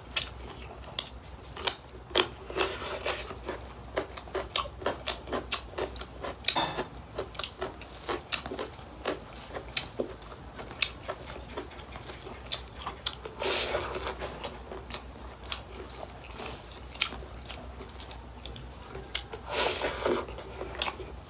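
A person chewing and eating rice and pork by hand, with many short wet smacks and clicks of the mouth throughout. There are two longer, noisier stretches, one near the middle and one near the end.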